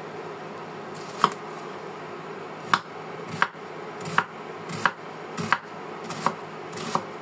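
Chef's knife chopping a peeled onion on a wooden cutting board: eight sharp knocks of the blade striking the board, starting about a second in and coming roughly one every three-quarters of a second.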